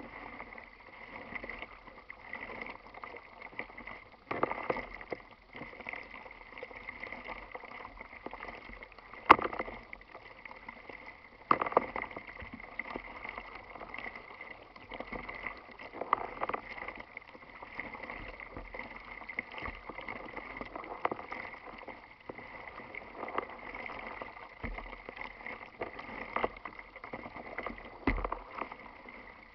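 Small waves lapping and slapping against a plastic kayak hull, with sharper splashes coming irregularly every few seconds.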